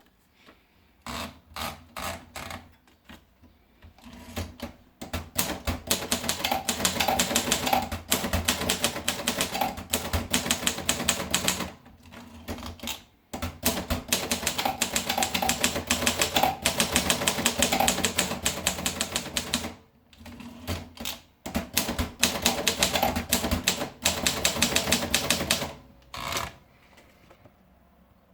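Olympia Progress manual typewriter being typed on: a few single key strikes at first, then long runs of fast, clattering keystrokes broken by two short pauses, stopping shortly before the end.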